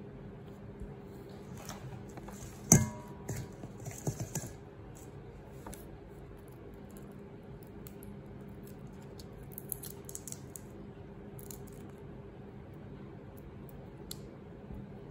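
Shrimp being peeled by hand: small clicks and crackles of shells being pulled off, with one sharp ringing clink about three seconds in, like a hard object knocking a dish, over a steady low hum.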